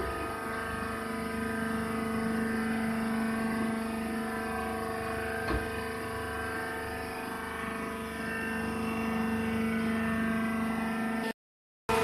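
Wood shavings bagging baler's power unit running steadily: a constant machine hum with a steady whine. One sharp click about halfway through, and the sound cuts off suddenly near the end.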